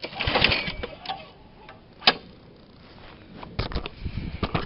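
Old walk-behind lawn mower being pull-started: a burst of clattering as the recoil cord is yanked, a sharp click about two seconds in, and more clatter and knocks near the end. The engine turns over without catching.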